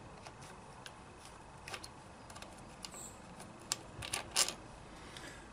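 Light metallic clicks and clinks of hand tools working on a motorcycle's engine casing, scattered singly, with a quick run of clinks about four seconds in.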